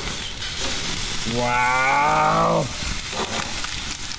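Chicken sizzling on the hot grates of a gas grill, a steady frying hiss, with a few light clicks.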